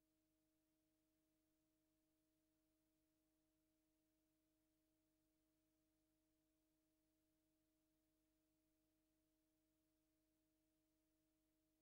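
Near silence: a blank recording with only a faint steady hum of a few constant tones.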